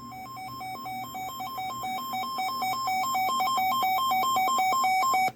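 Electronic alert tone from a weather alert radio: two beeping pitches alternate in a quick, uneven pattern, grow steadily louder, then cut off suddenly.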